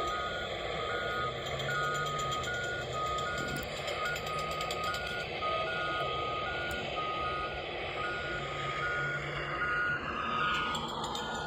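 Backup alarm of a reversing construction vehicle, beeping steadily about twice a second over a continuous rumble of engine and traffic noise. Near the end a passing sound sweeps down in pitch.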